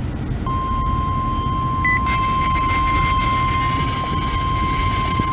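NOAA Weather Radio 1050 Hz warning alarm tone playing over a car radio during the required weekly test. It is a single steady tone that starts about half a second in, over the car's road rumble, with a short higher beep about two seconds in.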